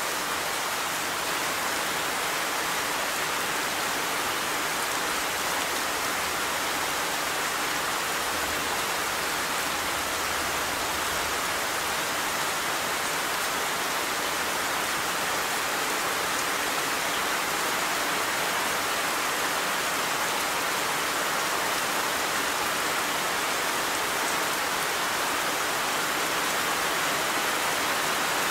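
Steady, heavy rainfall: a dense, even hiss of rain with no change in strength.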